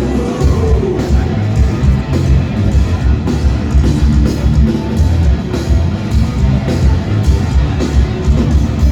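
Live rock band playing an instrumental passage of distorted electric guitars, bass and a driving drum kit, recorded loud from the audience.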